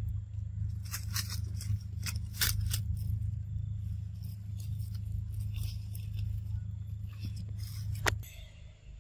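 A macaque tearing and biting into a piece of soft yellow fruit: scattered sharp snaps, rips and crunches in clusters, over a steady low hum that stops about eight seconds in.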